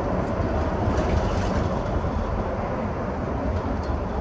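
Steady rumble and running noise of a moving vehicle.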